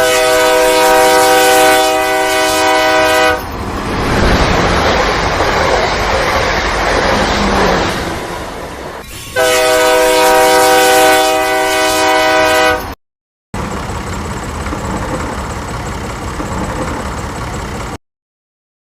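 Train horn blowing twice, each a steady chord of about three seconds, with the noise of a train running on the rails between and after the blasts. The sounds start and stop abruptly, as edited-together clips.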